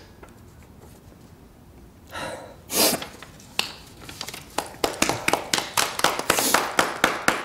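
A few people clapping, starting about halfway through as a steady run of claps at about three or four a second. Before it, a couple of short breathy sniffs.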